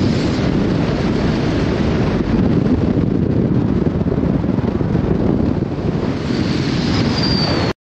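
Wind buffeting the microphone: a loud, gusty low rumble, with a faint high whistle near the end. It cuts off suddenly just before the end.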